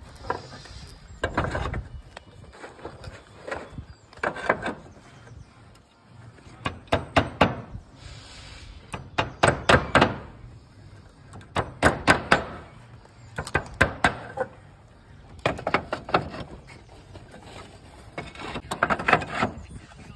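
Roof tiles knocking and clacking as they are laid and seated onto timber battens: short clusters of sharp knocks about every two seconds.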